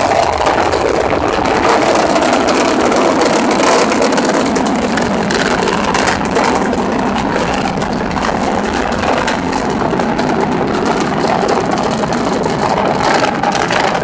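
Antares rocket's two AJ26 first-stage engines during ascent, heard as a steady rumble through a phone's microphone.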